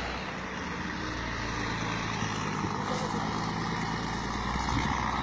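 Heavy dump truck's diesel engine running steadily, getting a little louder near the end.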